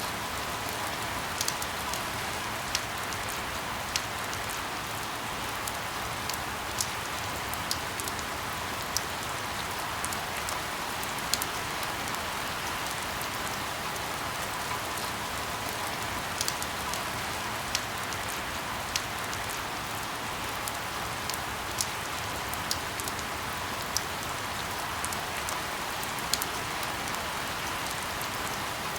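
Steady rain, an even hiss with sharp single ticks at irregular intervals, about one a second.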